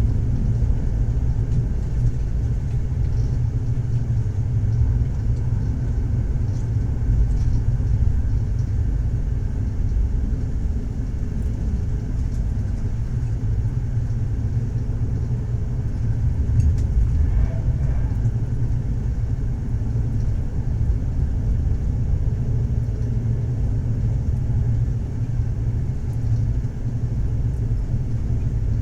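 Moving train, a steady low rumble of wheels on the track.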